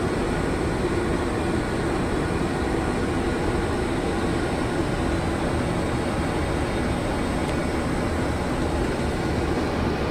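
Steady flight-deck noise inside an Airbus A330 on its descent: an even rush of airflow and engine noise that holds without change.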